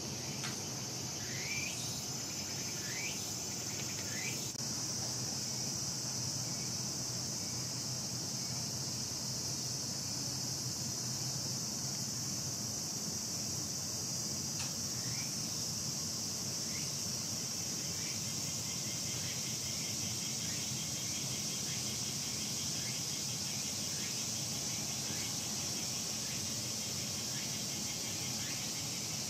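Steady high-pitched drone of a summer cicada chorus, with a few short rising chirps in the first few seconds.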